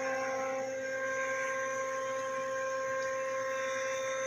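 Steady electric machine hum with several whining tones from CNC lathe machinery running, unchanging in level; one of the higher tones drops out under a second in.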